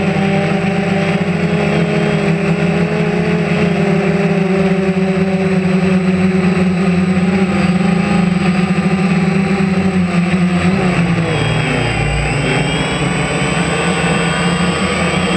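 Small camera drone's electric motors and propellers whining steadily in flight, heard close up through the onboard camera; about eleven seconds in the pitch dips and shifts as the motors change speed.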